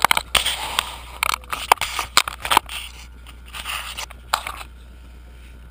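Close handling noise on the camera body: a quick run of clicks, scrapes and rubbing as the camera is handled and fitted to its mount, stopping about four and a half seconds in.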